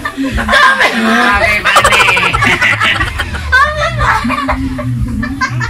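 Several people laughing and snickering, with high excited voices, loudest about two seconds in.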